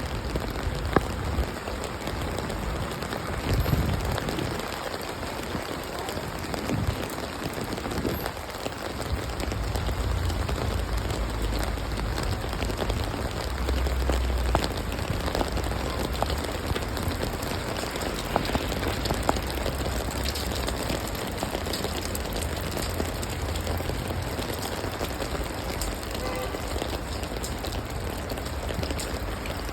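Steady rain falling on hard surfaces, with many small drops ticking individually and a low rumble underneath.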